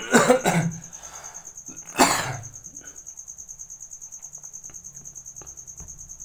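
A person coughing twice, a double cough at the start and a single one about two seconds in, over a steady, fast, high chirping of crickets.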